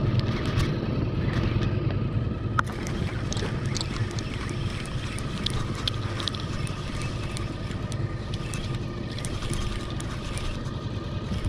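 Small boat's motor running steadily at trolling speed, with water and wind noise and scattered light ticks.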